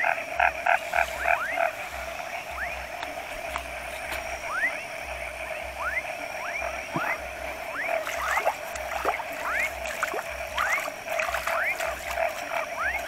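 A night chorus of frogs calling: a steady droning chorus beneath many short rising whistled calls, one every second or so, with a quick run of pulsed calls in the first couple of seconds.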